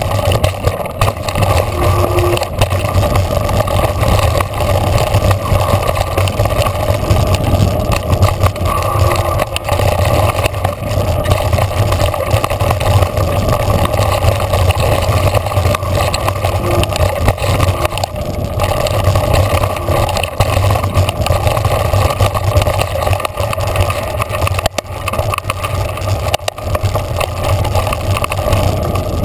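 Mountain bike riding fast down a rough dirt trail, heard from a handlebar-mounted camera: steady wind and tyre noise with constant rattling and small knocks from the bike over the bumps.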